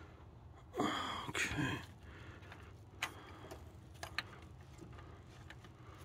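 Metal hand tools clicking a few times against the engine's new coolant temperature sensor as a wrench is fitted onto it. About a second in there is a short, louder noisy sound lasting about a second.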